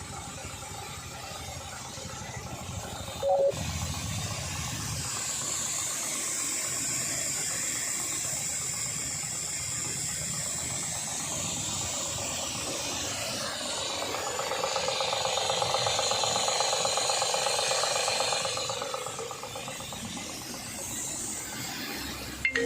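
KisanKraft power sprayer running on its electric motor, with a steady hiss of pressurised spray that swells louder for a few seconds past the middle. A short, loud tone sounds about three seconds in.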